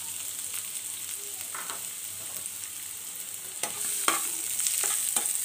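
Sliced onions sizzling in hot oil in a pan, being fried to soften. From about three and a half seconds in, a spatula stirs them, scraping and clicking against the pan.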